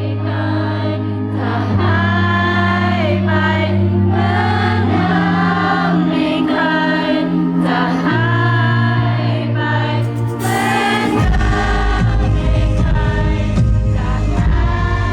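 Background song with singing voices over long held bass notes; a beat comes in about eleven seconds in.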